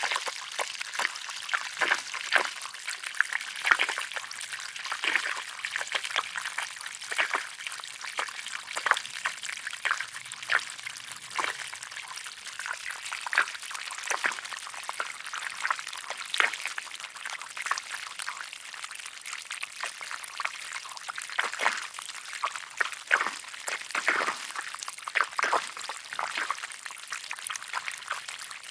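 Garden hose spraying water: a steady hiss with irregular splashes and spatters throughout.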